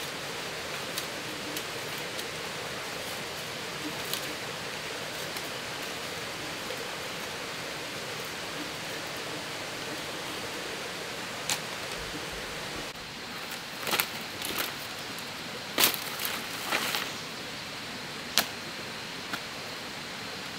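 Thin bamboo strips being split and handled: light ticks at first, then after about 13 s several sharp cracks and clatters, the loudest about 16 s in. Under it all is a steady rushing background like running water.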